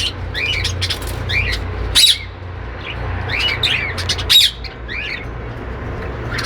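A flock of budgerigars chattering with many short warbling chirps, with a louder sharp squawk about two seconds in and another past the middle.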